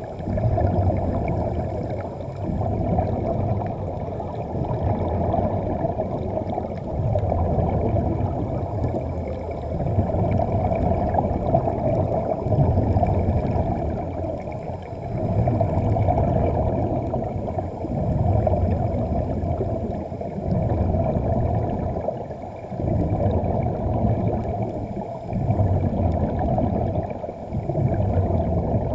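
Muffled underwater rushing and bubbling, as heard through a camera's waterproof housing, swelling and fading every two to three seconds.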